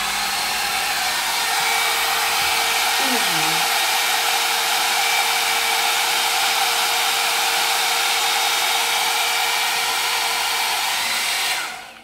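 Rotating hot air brush running: its fan blowing a steady rush of air with a faint hum under it, switched off shortly before the end.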